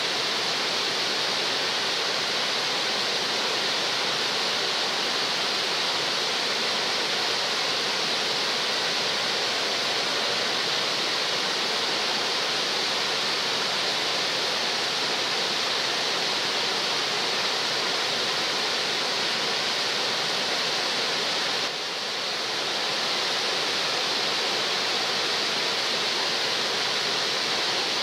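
Water of a wide, low waterfall spilling over stepped rock ledges into a pool: a steady, even rushing hiss.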